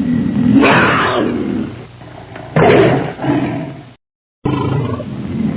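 A large wild animal roaring: two loud, rough calls about two seconds apart. After a brief break there is a quieter, low rumbling.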